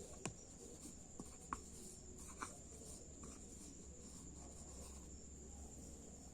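Quiet background with a faint steady high-pitched tone and four light clicks in the first half.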